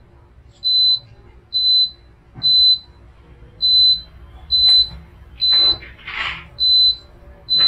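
Sublimation mug heat press beeping: a short high-pitched beep about once a second, the signal that it has heated up to its set temperature. A brief scratchy rustle about six seconds in.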